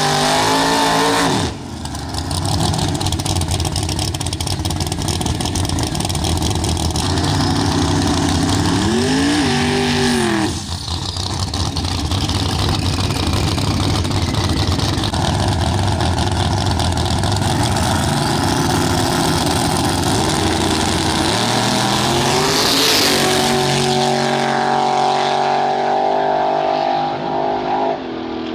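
Drag cars' engines at full throttle through tire-spinning burnouts, revving up and down in sharp sweeps. Near the end, two cars launch and accelerate away down the strip.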